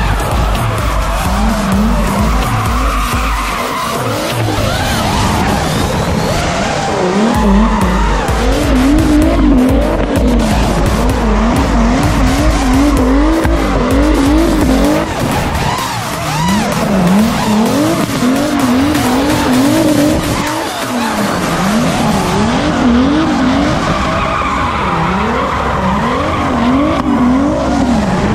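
Turbocharged BMW E36 328i straight-six revving up and down over and over as the throttle is worked through a drift, with the rear tyres squealing and scrubbing.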